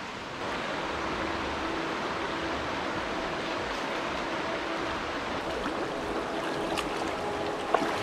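Shallow rocky creek running steadily over stones, an even rush of water. A brief sharp click near the end.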